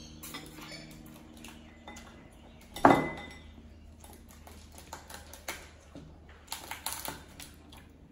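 Tableware clinking during a seafood boil meal: scattered small clicks and taps, one loud clink about three seconds in that rings briefly, and a burst of crisp rustling and clicking near the end.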